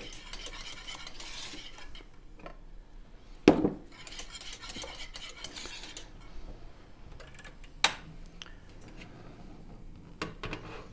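Wire whisk stirring a béchamel sauce of milk whisked into a flour-and-butter roux in a nonstick saucepan: a steady, quiet scraping. It is broken by a sharp knock about three and a half seconds in, another about eight seconds in, and a smaller one near the end.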